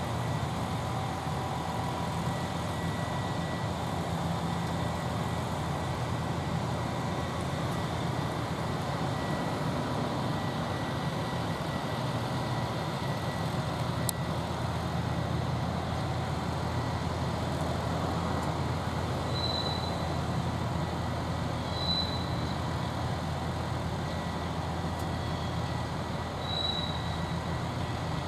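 Steady low rumble of trains in a rail yard, with a faint steady high hum over it. A few short high chirps come in the second half.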